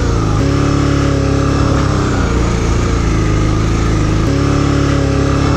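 Honda Transalp 650's V-twin engine running steadily under throttle, the note shifting slightly about half a second in and again near the end.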